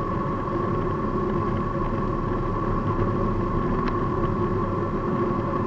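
Mercedes-Benz CLA250e plug-in hybrid running flat out at its top speed of about 240 km/h, heard inside the cabin: a steady drone of the four-cylinder petrol engine held at constant revs with road and wind noise. A faint click comes about four seconds in.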